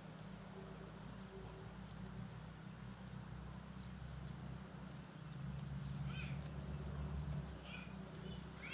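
Pasture ambience around grazing cattle: a steady low hum under a high chirp that repeats several times a second for the first half. A few short bird-like calls come toward the end.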